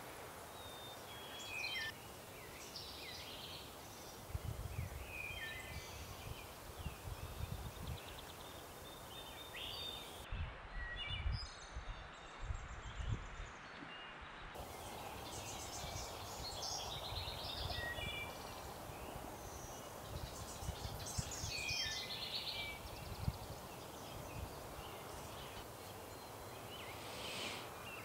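Songbirds calling and singing in spring woodland: many short high chirps and trills, with irregular low rumbles underneath.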